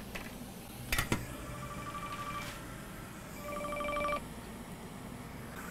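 Electronic telephone ringer ringing in two short bursts, the second with a fast warble, after a sharp click about a second in.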